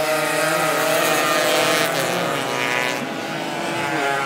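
Several Suzuki AX100 two-stroke single-cylinder race motorcycles running hard at high revs. Their pitches glide and overlap as the bikes pass close by, loudest in the first couple of seconds.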